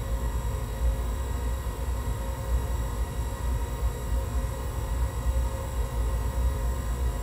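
Electronic drone from a live noise performance: a dense, low rumble under several high sustained tones, holding steady without a break.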